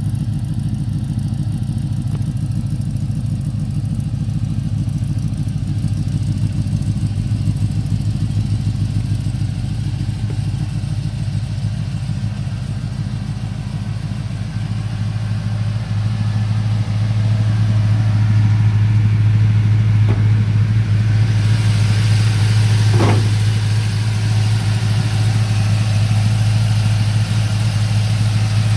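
6.0-litre GM Vortec V8 with a Brian Tooley Racing Stage 3 truck cam, headers and MagnaFlow exhaust, idling steadily with an even, pulsing exhaust note. It grows louder and brighter about two-thirds of the way through.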